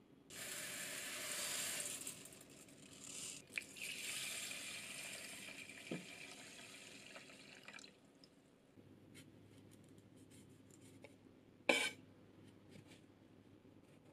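Water poured from a glass measuring cup onto uncooked rice in a rice cooker's inner pot, splashing steadily for about eight seconds with a short break. Near the end a single sharp knock comes from a kitchen knife cutting through a sweet potato onto a wooden cutting board.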